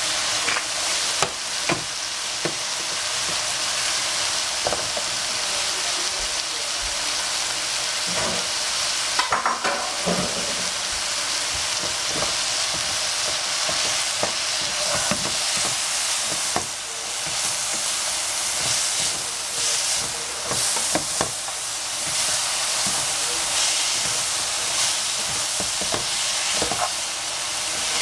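Broccolini and capsicum sizzling in a hot frying pan, a steady hiss, with scattered knocks and scrapes of a wooden spatula stirring them against the pan.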